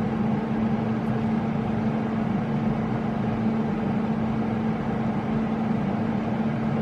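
Microwave oven running: a steady, unbroken hum.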